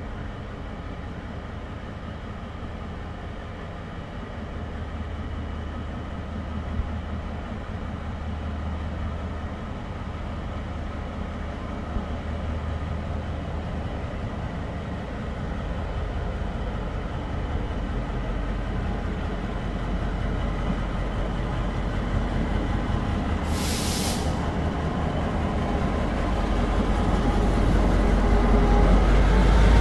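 Taiwan Railways diesel-electric locomotive R125 pulling a parcel train out of the station: its engine's low, steady hum and rumble grows louder as it approaches. A short burst of air hiss comes about three-quarters of the way through, and the sound is loudest near the end as the locomotive draws alongside.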